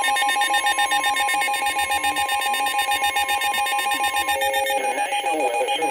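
Emergency alert attention signal: steady electronic tones sounding together with a fast, even flutter. It breaks off shortly before the end, as a voice begins reading the next warning.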